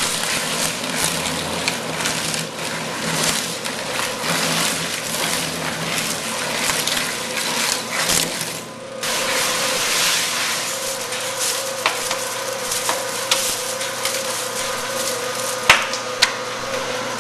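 Industrial shredder running steadily with a motor hum while it crunches and cracks floppy disks. The sound drops away briefly about halfway, then resumes, with two sharp cracks near the end.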